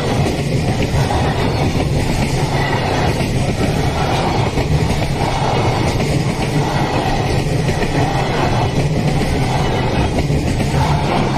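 Freight train passing close by: a steady rush of wheels on rail, with a regular beat about once a second as the wagons go past.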